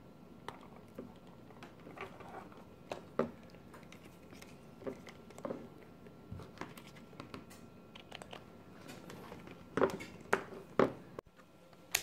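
Faint handling noise from an alligator clip and its wire being worked by hand on a wooden tabletop: scattered small clicks and taps, with three louder sharp clicks close together about ten seconds in.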